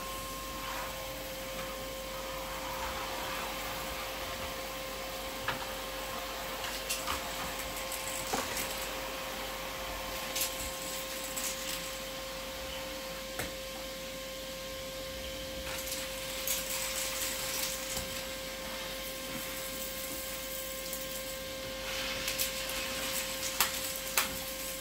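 Vacmaster 2.5-gallon shop vacuum running steadily, its motor giving a constant whine under the rush of air, with scattered short bursts of hiss and a few clicks as it works.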